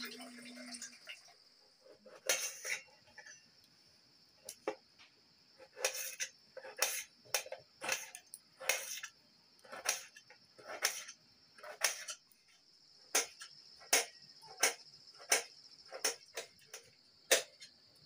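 A knife slices tomatoes on an upturned stainless steel plate, each cut ending in a sharp click of the blade on the metal, in irregular strokes. Briefly at the start, water is poured into a metal bucket. A steady high insect chirring runs underneath.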